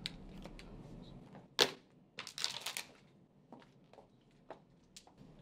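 Handling and movement sounds: one sharp click about a second and a half in, a short burst of rustling just after, then a few light taps about every half second.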